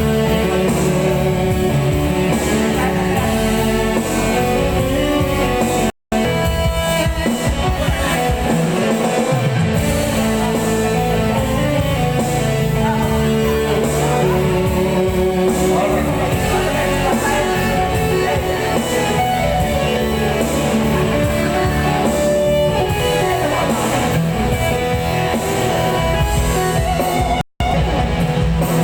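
Music: a guitar-backed song with singing, cutting out completely for a moment twice, about six seconds in and near the end.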